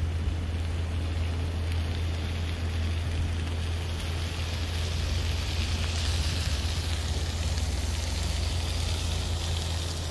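A wok of sago grubs and vegetables frying in oil over a charcoal grill, a steady crackly sizzle that grows stronger about halfway through, over a constant low rumble.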